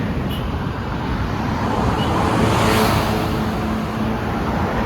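Road traffic with a vehicle passing close by, a rushing sound that swells to its loudest about three seconds in, with a faint steady engine-like tone under it in the second half.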